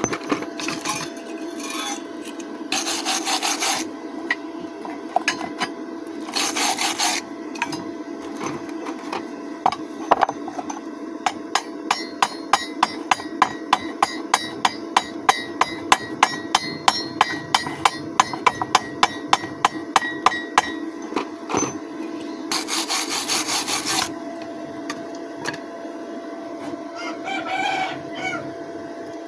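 Hammer tapping on steel in a rapid, even series of about four strikes a second, with a few short bursts of scraping and a steady hum underneath.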